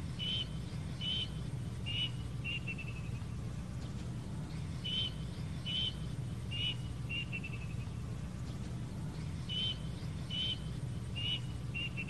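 Plaintive cuckoo calling three times: each phrase is four short whistled notes, each a little lower than the last, trailing off in a quick run of falling notes. A low steady hum lies underneath.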